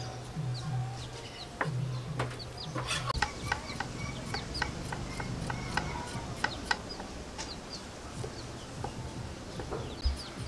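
Knife cutting through fibrous galangal root onto a wooden chopping board, a run of sharp cuts about two or three a second in the middle. Chickens clucking and small birds chirping in the background.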